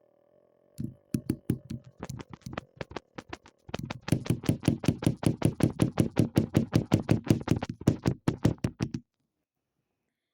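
A fast, even run of sharp knocks, about five or six a second, with a short break partway through, stopping abruptly.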